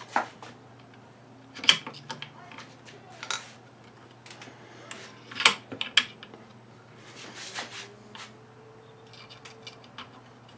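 Sharp metallic clicks and taps, about five at uneven intervals, as the hammer and its pin are worked into an AR-15 lower receiver while the holes are lined up for the pin.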